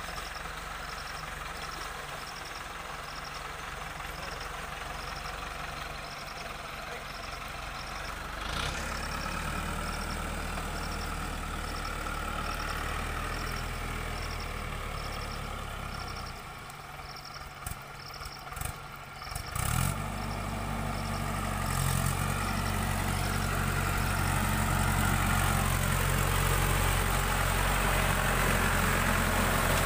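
Mahindra Arjun tractor's diesel engine running as it works through flooded paddy mud. The engine is fainter at first, drops away briefly with a few knocks just past halfway, then runs louder and steadier for the last third.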